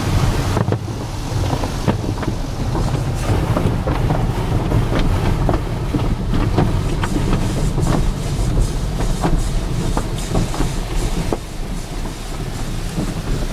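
Automatic car wash heard from inside the car: a steady low rumble with water spraying and drumming on the glass and body, broken by many short slaps and knocks as the wash's cloth strips sweep over the car.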